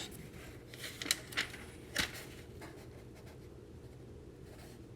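A few soft rustles and light taps of an old paper catalog being handled and its pages turned, over the first two seconds, then a faint steady hum.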